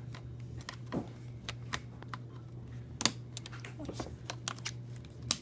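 Scattered light clicks and taps of a small tool on a laptop keyboard's ribbon-cable connector as its little latch is pried up. The sharpest clicks come about three seconds in and near the end, over a steady low hum.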